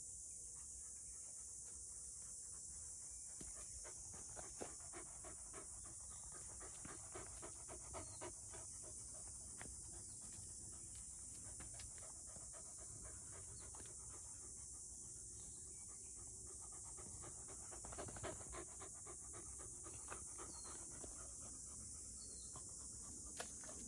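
Six-month-old black Labrador puppy panting faintly, in spells of quick breaths a few seconds in and again about three-quarters through. A steady high hiss, like insects, sits under it throughout.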